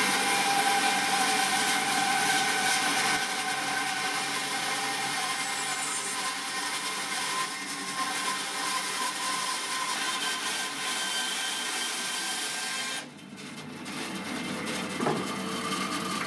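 Record Power BS350S 14-inch, 1.5 hp bandsaw ripping a birch log about 10 cm thick: dense cutting noise over a steady whine. About three-quarters of the way through, the cutting noise drops off suddenly and the saw runs on more quietly. A single click comes near the end.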